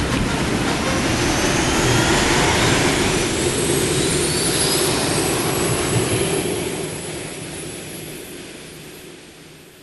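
Sci-fi starfighter fly-by sound effect: a jet-like engine roar with gliding whining tones. It swells as the ship passes, then fades away over the last few seconds.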